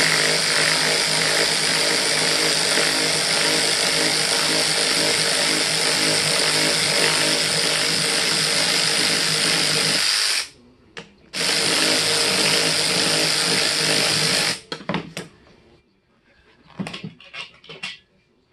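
Cordless electric ratchet running steadily for about ten seconds, backing out a seat-hinge bolt, then a short blip and a second run of about three seconds. Near the end a few light clicks and knocks as the tool and parts are handled.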